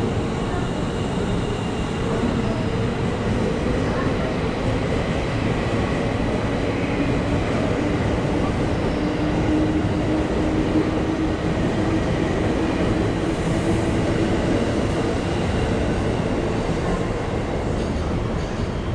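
Electric train running at a station platform, a steady loud rumble of wheels and running gear with a faint drawn-out hum.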